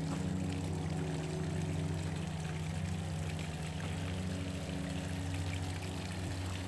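Mercury two-stroke outboard motor idling steadily on a garden-hose water supply, with water splashing out of its lower unit.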